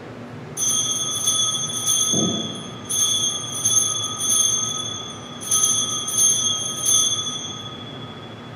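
Altar bells rung at the elevation of the host, marking the consecration: three shakes, each a quick cluster of about four strokes, with the ringing dying away near the end. A brief low thump about two seconds in.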